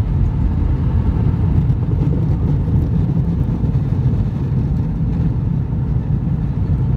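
Steady low rumble in the cabin of an Airbus A319 rolling along the ground after landing: engine noise and wheels on the tarmac, with no sudden events.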